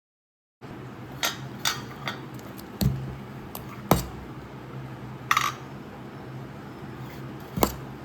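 About seven sharp clinks and knocks of hard objects at irregular intervals over a steady low hum. The loudest comes about halfway through, and one soon after rings briefly.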